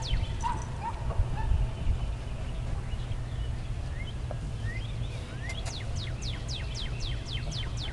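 A bird singing fast runs of short high notes that slide downward, about five a second, briefly at the start and again for the last couple of seconds, with a few scattered chirps between. Under it runs a steady low rumble of wind on the microphone.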